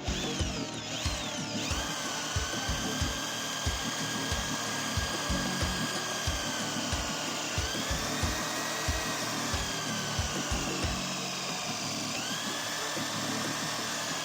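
Top-load washing machine motor spinning with a steady whine whose pitch sags and rises again a few times as its speed changes. Low thumps about twice a second run under it and stop about three-quarters of the way through.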